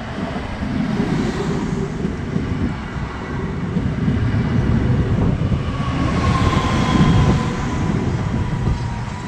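Newag Impuls electric multiple unit pulling into the platform and rolling past close by: a steady rumble of wheels on rails. From about six seconds in, a faint high whine slides slightly down in pitch as the train slows.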